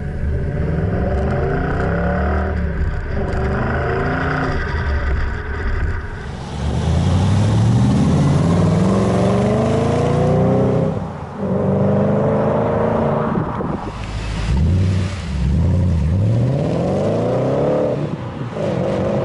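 Audi S4's 4.2-litre V8 through a custom stainless axle-back exhaust with Magnaflow mufflers, accelerating through the gears: the pitch climbs in long rising sweeps with brief drops between them at the gear changes. The exhaust note is low-toned and rumbly.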